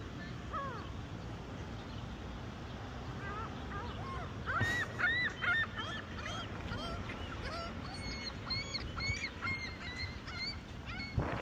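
A flock of gulls calling: many short, overlapping cries that start sparse and grow thick from about three seconds in, over a steady low background rumble.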